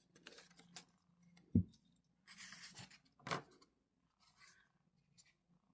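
Pocket knives being handled: a few light clicks, a dull thump about a second and a half in, then a short rustle and a knock.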